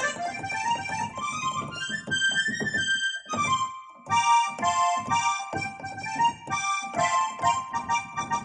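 Roland E-X20 arranger keyboard playing a melody in one of its Indian voices, sliding up in pitch over the first couple of seconds. After a short break about three and a half seconds in, a new phrase comes in over regular percussion strokes.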